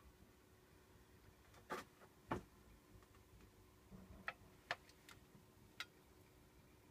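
Near silence broken by about half a dozen brief, irregularly spaced clicks, the loudest about two and a half seconds in.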